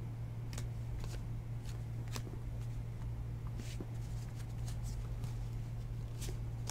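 Trading cards being flipped and slid through the hands one by one: a scatter of short, soft card snaps, about two a second and irregular, over a steady low hum.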